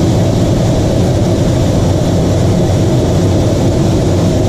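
Steady in-flight cockpit noise of an L-39 Albatros jet trainer, its single turbofan engine running, heard from inside the canopy.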